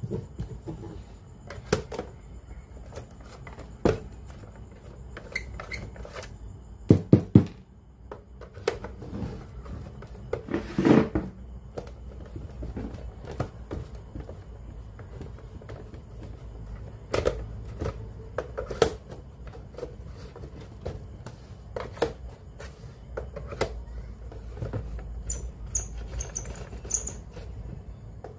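Scattered clicks and taps of small hard objects being handled, with three quick knocks about seven seconds in and a short scraping rattle about eleven seconds in.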